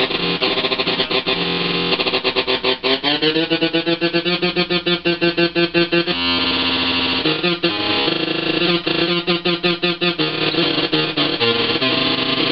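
Electric guitar played through a breadboarded Schumann Two Face fuzz circuit, NPN side, in its oscillation setting. The tones are sustained and heavily fuzzed and sputter in fast pulses. About three seconds in the pitch slides upward, and a steady drone with no pulsing follows around six seconds.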